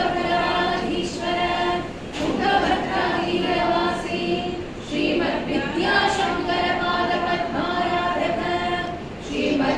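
A woman singing a devotional song unaccompanied, with long held notes in phrases of a few seconds and short breaks for breath between them.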